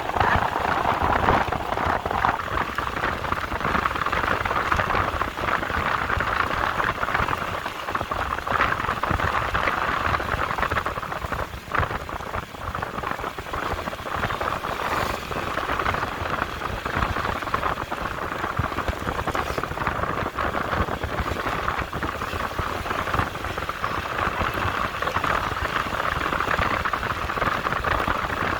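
Steady rushing noise of a vehicle on the move: wind and road noise, with a short dip about twelve seconds in.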